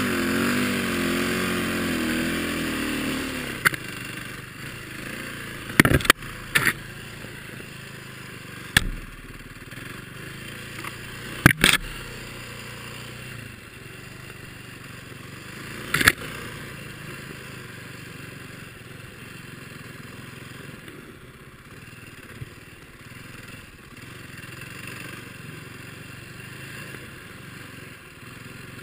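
Single-cylinder four-stroke dirt bike engine on a Timbersled snowbike, revving hard for the first few seconds and then running lower and quieter. Sharp knocks and clatters break in about six times.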